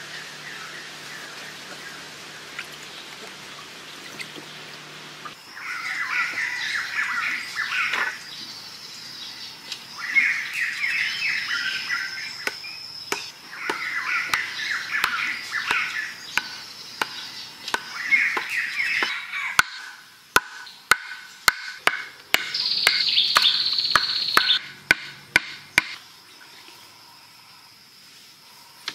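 Jungle birds singing in repeated trilling phrases over a steady high tone. From about two-thirds of the way in comes a run of sharp knocks, roughly two a second: wooden stakes being pounded into the ground with a log.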